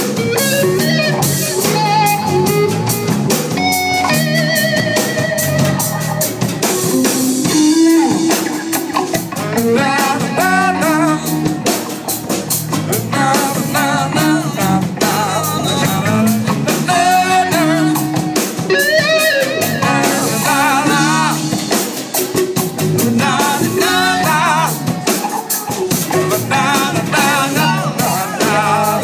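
A live band playing: a Stratocaster-style electric guitar, an electric bass and a drum kit, with a man singing over them at times.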